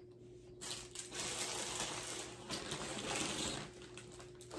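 Plastic packaging bag rustling and crinkling as it is handled, starting about half a second in.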